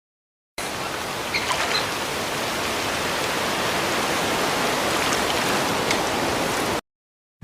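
Steady rushing noise, even across high and low pitches, like running water, with a few faint short high sounds about a second and a half in. It starts and stops abruptly.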